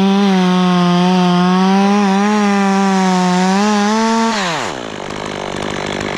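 Stihl chainsaw running at full throttle, cutting through a pine trunk, its engine note steady and high. About four seconds in, the throttle is released and the revs drop away to idle.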